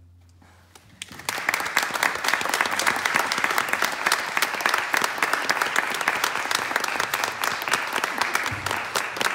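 The last note of a violin and cello duo fades away, then audience applause begins about a second in and carries on steadily.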